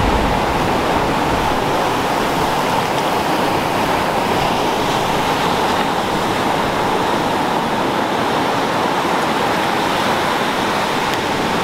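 Steady rush of surf washing up a sandy beach, an even noise with no breaks.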